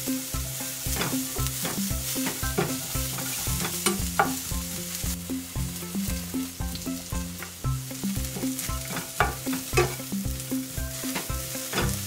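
Wooden spatula stirring dried small anchovies with sliced chilies in a nonstick frying pan, with dry scraping and clicking strokes over a light sizzle from the still-hot pan. Soft background music with a steady beat runs underneath.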